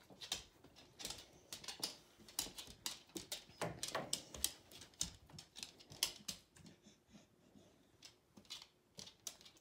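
A dog working at an interactive treat toy on a wooden floor: irregular clicks, taps and scrapes, several a second, thinning out after about six seconds.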